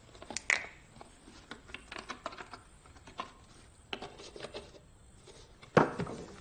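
Scattered small clicks, knocks and rubs of bottles and jars being handled at an open refrigerator, as a small glass bottle is taken out and handled; a sharper knock near the end.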